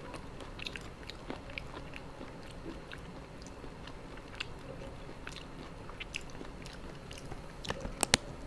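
A person chewing a mouthful of spicy seafood papaya salad close to the microphone. There are soft, scattered crunches and mouth clicks, with a few louder ones near the end.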